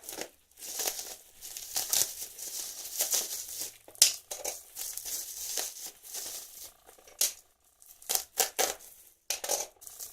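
Plastic packaging of a courier parcel being crinkled and torn open by hand in irregular rustling bursts, with a sharp click about four seconds in.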